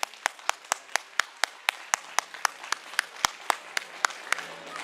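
Applause led by one pair of hands clapping close by, sharp and steady at about four claps a second over fainter clapping behind. The claps slow and thin out near the end.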